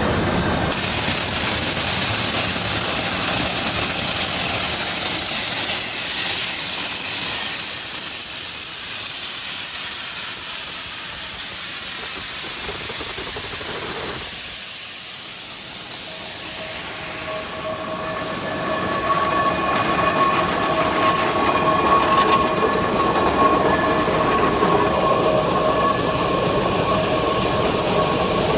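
Steam locomotive: a loud, steady rushing hiss with thin high whistling tones over it, joined about two-thirds of the way through by a steady pitched ringing tone.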